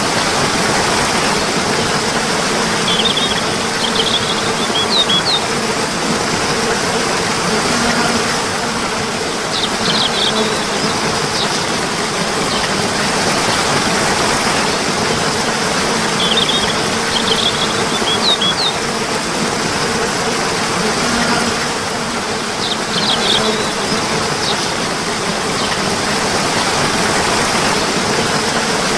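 Flowing water running steadily, with small birds chirping in short clusters every few seconds.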